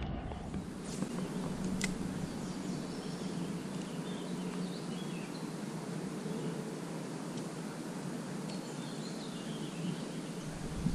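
Steady outdoor background noise with a few faint bird chirps scattered through it, and a single sharp click about two seconds in.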